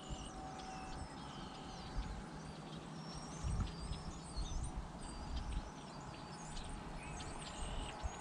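Many small birds chirping and calling, with quick high thin notes throughout, over a low rumble of wind on the microphone.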